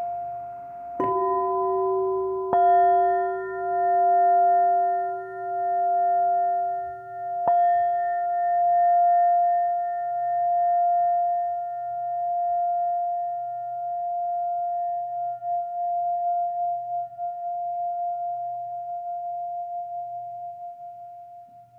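Quartz crystal singing bowls struck with a mallet three times, about one, two and a half, and seven and a half seconds in, then ringing on in long sustained tones. A lower tone fades away partway through, while the higher tone keeps ringing with a slow pulsing waver and fades near the end.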